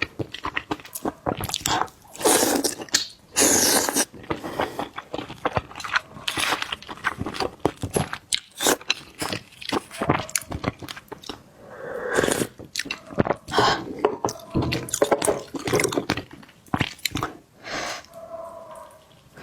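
Close-up eating of barnacles: dense, irregular crunching and chewing, with sharp clicks and scrapes of shell.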